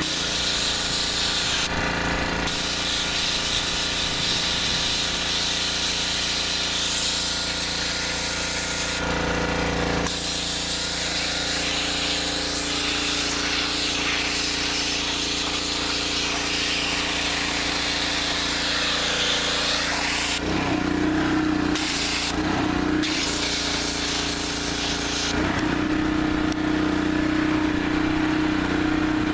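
Pressure washer running with its water jet hissing as it blasts a boiled deer skull clean. The spray cuts out briefly a few times while the machine's steady hum carries on.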